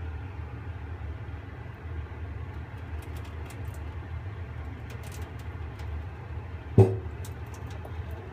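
Water being poured off a frying pan of boiled potato cubes into a stainless steel sink, a fork holding the cubes back: faint clicks and scrapes over a steady low hum. Near the end comes one sharp metal clank that rings briefly.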